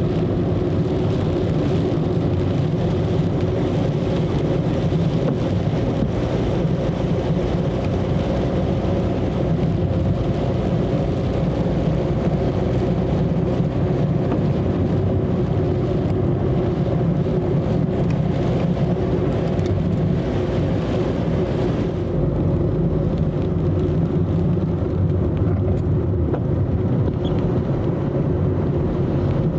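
Car cabin noise while driving on a wet road: a steady engine and road drone with tyre hiss, heard from inside the car. The hiss eases a little about two-thirds of the way through.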